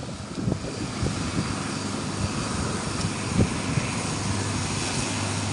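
A steady engine hum with a low drone.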